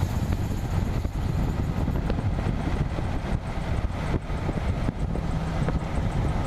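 Road and wind noise from a 2004 Jeep Wrangler Rubicon driving, heard from under the chassis: a steady low rumble of tyres and running gear with wind on the microphone, and a few short knocks.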